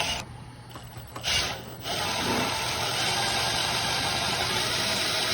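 Annular spot weld cutter driven by a drill, cutting around a spot weld in a car's rocker panel: two short bursts, then a steady cutting noise from about two seconds in.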